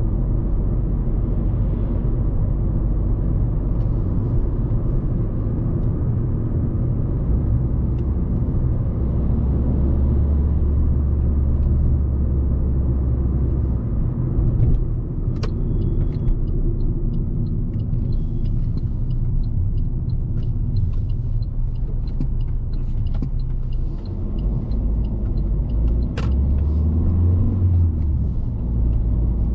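Alfa Romeo MiTo 1.3 JTDm four-cylinder turbodiesel engine and tyre noise heard from inside the cabin while driving through town, a steady low rumble. About halfway through a click starts a run of evenly spaced light ticks, typical of a turn-signal relay, which ends with another click about ten seconds later.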